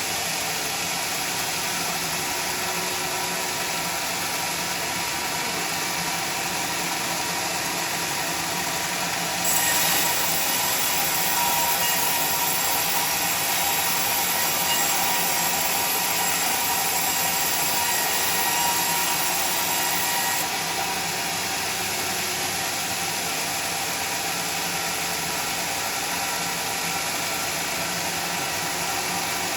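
Sawmill machinery running steadily. About ten seconds in it grows louder and shriller with a high whine for roughly eleven seconds, then settles back to its earlier level.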